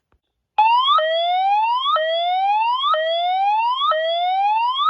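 Fire alarm speaker strobe sounding a whoop evacuation tone: a rising sweep that snaps back and repeats about once a second, starting just over half a second in.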